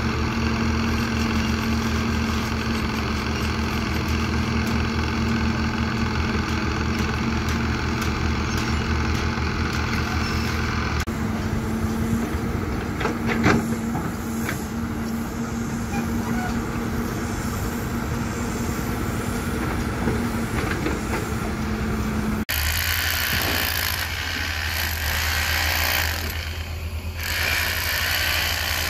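Diesel engine of a CAT hydraulic excavator running steadily under working load while it digs. About 22 seconds in, the sound switches abruptly to a corded handheld power tool running.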